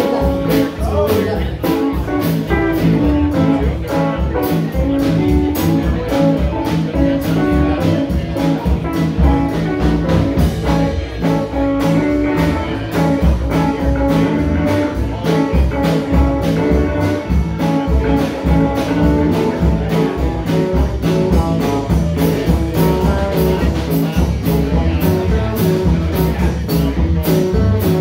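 Live band playing amplified electric guitars over a drum kit with a steady beat.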